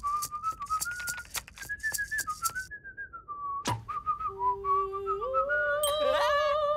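A cartoon character whistling a cheerful wandering tune, with light ticks along with it over the first few seconds. A single sharp knock comes a little past halfway, and near the end lower held notes join in under the whistling.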